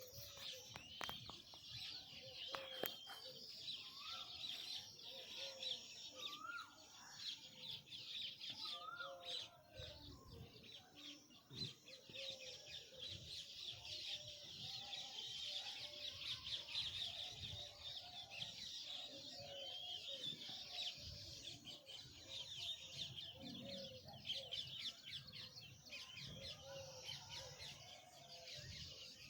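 Many small birds chirping together in a constant, dense chorus, with short lower bird calls repeating about once a second underneath.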